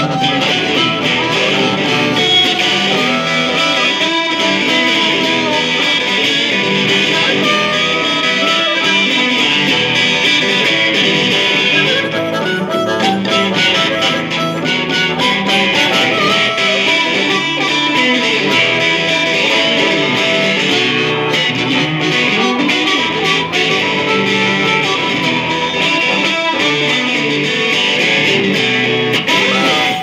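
Blues harmonica and electric guitar playing together live, the harmonica's held, bending notes over the guitar's playing.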